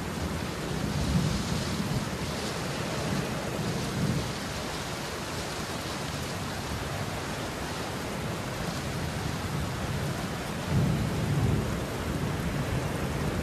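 Steady heavy rain, with low rumbles of thunder about a second in and again near the end.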